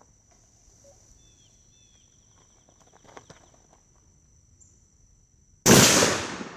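A single loud rifle shot about five and a half seconds in, its echo trailing off over about a second, fired at a Tannerite target. Before it, a steady high insect whine and a few faint clicks.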